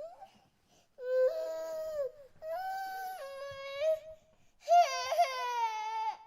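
A baby crying in three long wailing cries with short breaths between them. The last cry is the loudest and sinks in pitch as it ends.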